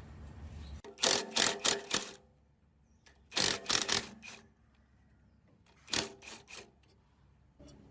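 Sharp knocks or taps in three quick clusters, about four strikes each, with short quiet gaps between them.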